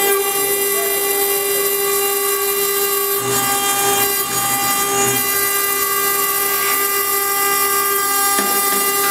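Spindle of a Twitte CNC-1218 router whining at a steady pitch as its engraving bit mills a wet stone slab; a lower rumble joins about three seconds in.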